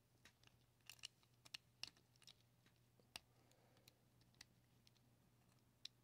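Faint, scattered light metal clicks and taps of a small hand tool against the nuts and frame of a small shaded-pole fan motor, as it is fitted onto the nuts in a tight spot.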